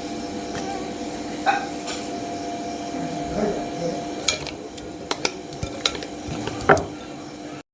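A cooking utensil stirring in a pot or pan, with a few sharp clinks against the vessel, the loudest near the end, over a steady hum.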